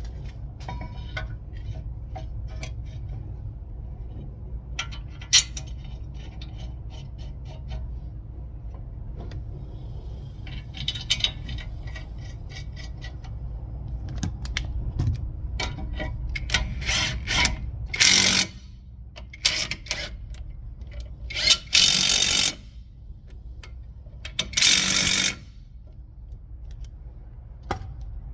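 Metal tools and brake parts clinking and scraping during a front brake rotor and pad job, over a steady low hum. Near the end come three short, loud bursts of hiss, the middle one the longest.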